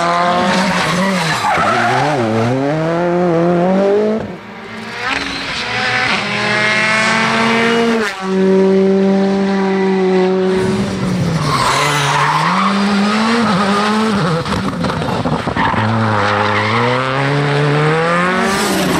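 Rally cars racing past one after another, their engines revving hard, the pitch climbing and then dropping again and again at each gear change or lift. The engine note dips briefly twice between cars, around four and eight seconds in.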